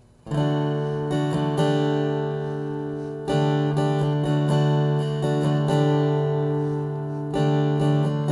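Acoustic guitar playing a song's introduction: three chords struck, each left to ring, with lighter picked notes between.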